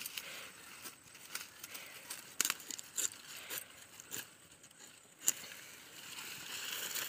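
Okra and maize plants being cut and pulled up by hand: rustling leaves and stems with a scatter of sharp snaps, the loudest about two and a half, three and five seconds in.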